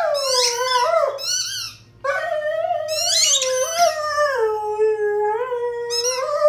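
A dog howling with a ball held in its mouth: two long, wavering howls, the first breaking off about two seconds in and the second following after a brief pause, sliding down in pitch and back up.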